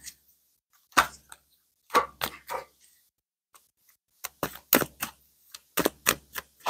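Tarot cards being handled on a table: a series of short, sharp clicks and taps at an uneven pace, sparse at first and busier in the second half.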